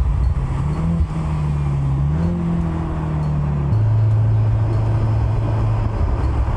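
Mercedes-AMG C63 S E Performance's 2.0-litre turbocharged four-cylinder engine running at speed, its note holding fairly steady with small rises, then dropping abruptly to a lower steady note just under four seconds in.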